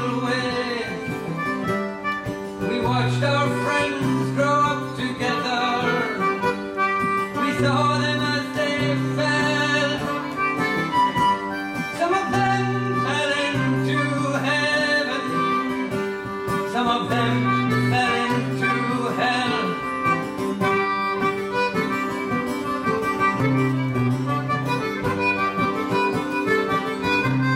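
Live acoustic folk music: a steel-string acoustic guitar strummed and picked together with a concertina playing sustained reedy chords and melody. A man's voice sings along at times.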